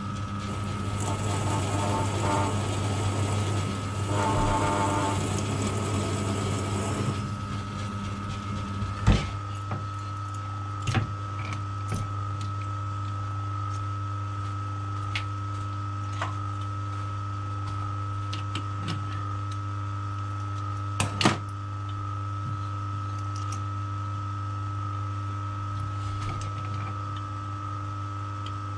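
Metal lathe running with a steady hum while a twist drill cuts into the end of a high-tensile steel bolt, a rough cutting noise over the first seven seconds or so. The drill is then backed out and the lathe runs on steadily, with a few sharp knocks, the loudest about nine and about twenty-one seconds in.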